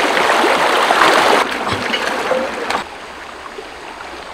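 Shallow stream rushing over rocks, loud at first, dropping sharply about a second and a half in and again near three seconds to a softer, steady flow.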